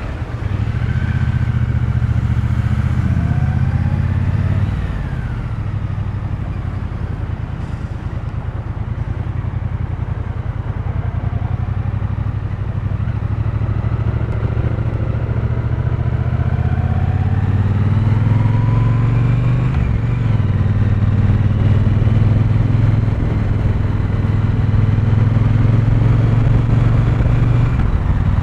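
Triumph T120 Bonneville's 1200 cc parallel-twin engine and exhaust heard from the rider's seat while riding. The engine note falls away about five seconds in as the throttle closes, then rises with the throttle and runs louder through the second half.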